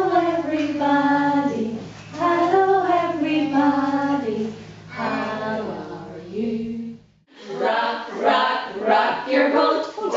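A group of women singing a song together, unaccompanied, with a steady low hum underneath. About seven seconds in the sound breaks off for a moment and the group singing carries on without the hum.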